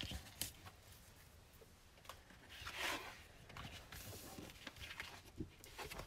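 Sheets of scrapbook paper rustling and sliding as a stack is handled and moved on a cutting mat, with a longer swish about three seconds in and a few soft taps afterwards.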